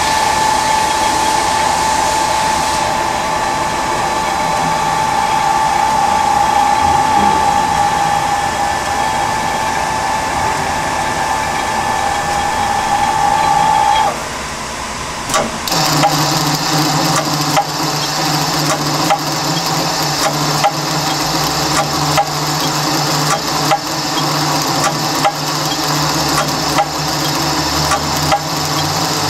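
A Tsugami SX20-C Swiss-type CNC lathe running with a steady whine. About halfway through the whine cuts off, and after a short click the machine runs on with a lower hum and a stream of light, irregular clicks.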